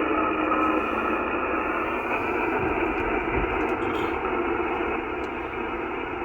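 CB radio receiver on the 11-meter band hissing with static and band noise between skip transmissions, cut off to the radio's narrow speaker range. A faint low steady tone fades out about a second in.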